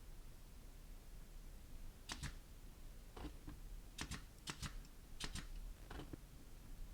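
Air nail gun firing into the wooden bench frame: about ten sharp clicks, several in quick pairs, from about two seconds in.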